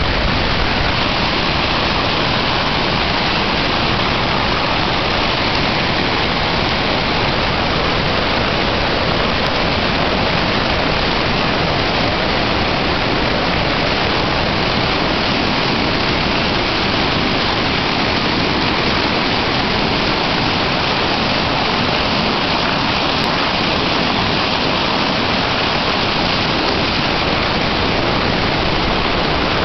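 Swollen floodwater rushing and churning over rocks in a flooded creek channel, a loud, steady rushing noise without a break.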